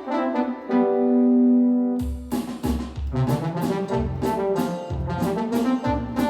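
Yamaha DX7 FM synthesizer playing a brass-like patch: a short phrase ending on a held note, then about two seconds in, bass notes and chords come in with a steady rhythm.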